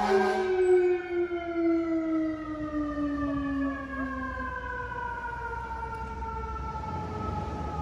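Fire truck siren winding down in one long, slow fall in pitch that fades over several seconds, the coast-down of a mechanical siren. A horn blast ends about half a second in.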